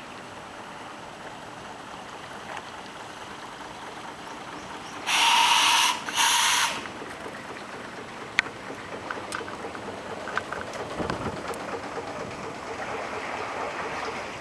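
Two blasts of the steam launch's whistle a little after five seconds in, the first about a second long and the second about half a second, both high and hissy. A single sharp click follows about two seconds later.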